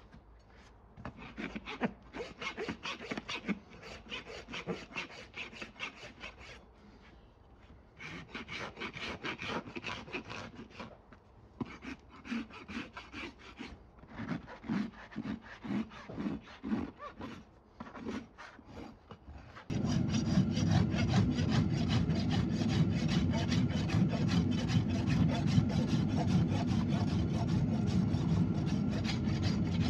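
Farrier's hoof rasp filing a horse's hoof in repeated scraping strokes, dressing the trimmed hoof. The strokes are uneven at first, fall into a steady rhythm of about one and a half a second in the middle, and about two-thirds of the way in turn suddenly louder and continuous.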